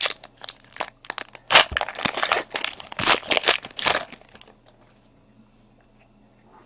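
Trading card pack wrapper being torn open and crinkled by hand: a run of sharp crinkling and tearing sounds that stops about four and a half seconds in.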